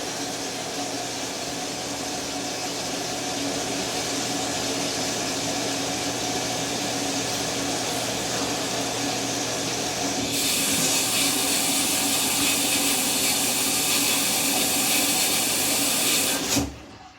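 GE GFW550 front-load washing machine running a rinse-and-spin cycle: a steady hiss of water over a low motor hum. A louder hiss comes in about ten seconds in, and the sound stops abruptly near the end.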